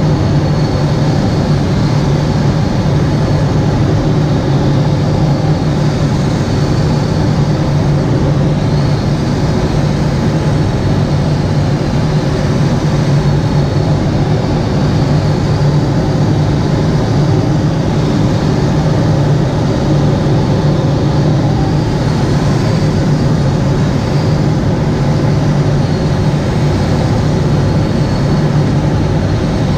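Loud, steady drone of airflow inside a sailplane cockpit in flight, with a constant low hum.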